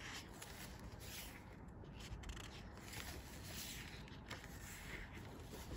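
Faint paper rustling and rubbing as glossy photobook pages are turned by hand.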